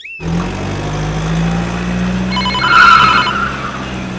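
Tractor engine sound running steadily. About two and a half seconds in, a telephone-like ring pulses for about a second over it.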